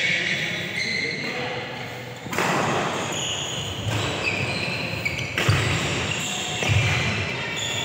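Badminton doubles rally: rackets striking the shuttlecock with sharp cracks, about three times, while players' shoes squeak in short chirps and their feet thud on the synthetic court mat. The sounds echo in a large hall.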